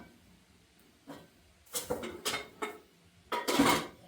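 Dishes and cutlery clattering: a handful of short knocks and clinks, the loudest near the end.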